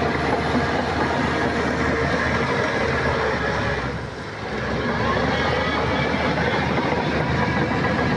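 Heavy earthmoving machinery working, with a steady diesel engine din that dips briefly about halfway through and then picks up again.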